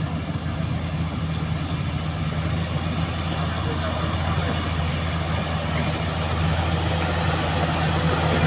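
Diesel engine of a Caterpillar 120K motor grader running steadily with a deep hum, gradually getting a little louder.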